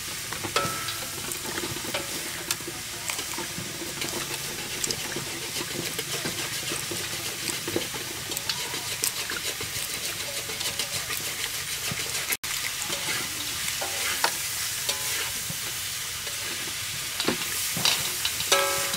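Hard-boiled duck eggs being peeled by hand in a steel basin of water: small crackles and clicks of breaking shell and light splashing, over a steady crackling hiss.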